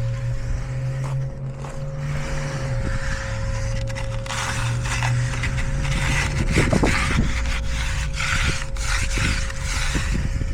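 Hand finishing tools scraping over fresh concrete in irregular strokes, over a steady low hum.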